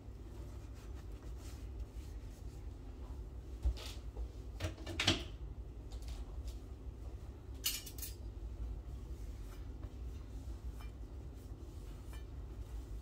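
Kitchen utensils and cutlery being set down and handled at a stainless-steel sink while dishes are dried by hand: a few sharp clinks, the loudest about four to five seconds in and another near eight seconds, over a low steady hum.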